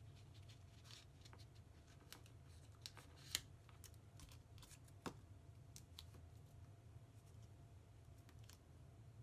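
Faint clicks and light paper handling as a photo is positioned and pressed onto a scrapbook page, over a low steady room hum; one sharper click comes about a third of the way in.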